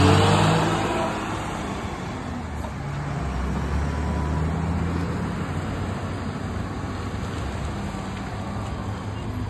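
Loaded multi-axle diesel goods truck pulling away, its engine hum loudest at first and fading over the first couple of seconds. The engine note swells again a few seconds in, then holds steady.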